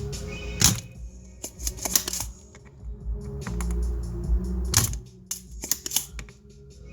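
Background music with a steady low hum, over irregular sharp clicks and clatter from small tools handled at a workbench.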